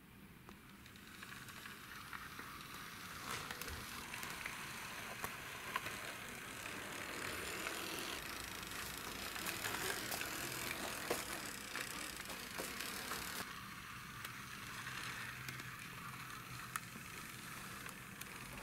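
Small wheels of a die-cast toy Ford Mustang GT rolling as it is pushed by hand across a wooden floor: a steady gritty rolling noise with scattered light clicks. It swells over the first couple of seconds and eases off somewhat after the middle.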